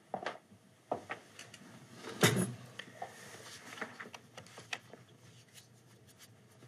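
Scattered light clicks and knocks in a small quiet room, with one louder thump about two seconds in.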